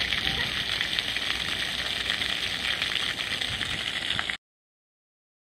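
Steady spattering hiss of a garden-hose water jet hitting the grass. It cuts off abruptly about four seconds in, leaving complete silence.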